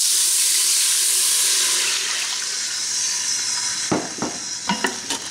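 Beef broth poured into the hot stainless steel inner pot of an Instant Pot, sizzling and hissing loudly as it hits the browned bits on the bottom, deglazing the pan. The hiss fades after about three seconds, and a few sharp knocks follow near the end.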